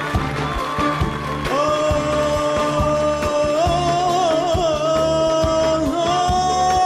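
A man singing Arabic song, holding a long, wavering note that begins about a second and a half in and steps higher partway through, over band accompaniment with a steady drum beat.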